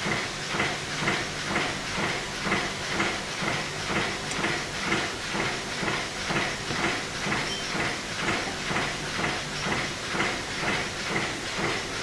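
Metal lathe running and cutting steel, a hissing cutting noise that pulses evenly about twice a second.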